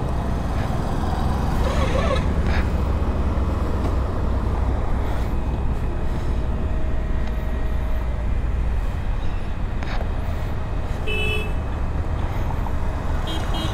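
Steady road traffic noise with a low rumble, as from wind and passing vehicles on a highway, with two short vehicle-horn toots in the last few seconds.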